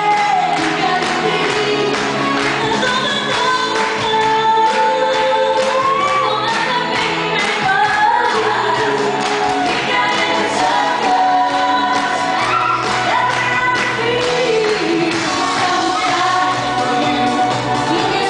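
Female vocal trio singing a schlager song into microphones over amplified backing music with a steady beat.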